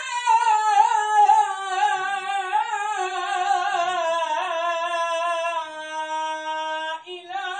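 A single voice chanting Islamic recitation in a melismatic, ornamented style, its line winding and slowly falling, with a long held note before a short breath near the end.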